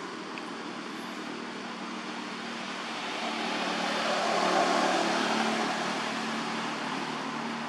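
A vehicle passing by: a steady low hum with a noise that swells to its loudest about four and a half seconds in and then fades.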